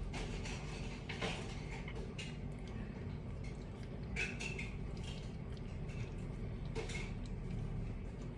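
Hands pinching and shaping soft dough around a meat filling for pirozhki: light, sticky squishes and small clicks at irregular intervals, one with a brief squeak about four seconds in, over a steady low hum.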